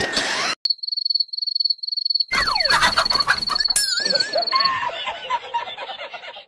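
Cricket chirping: a high, rapidly pulsed trill, heard alone for about two seconds, then carrying on under a busier mix of noise and gliding voice-like sounds until it stops a little past the middle.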